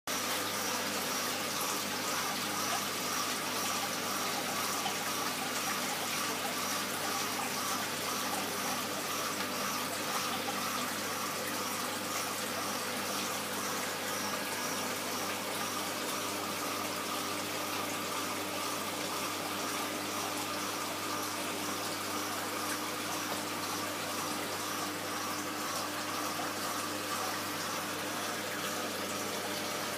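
Reef aquarium's water circulation running: a steady wash of trickling, splashing water, with a faint steady hum from the pumps underneath.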